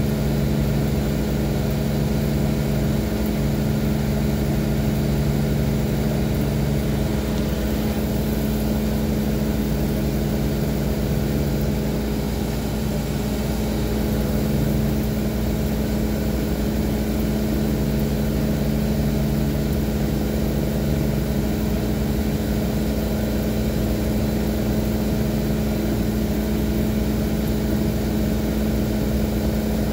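Steady hum of a washing appliance's pump motor, with water spraying inside the tub.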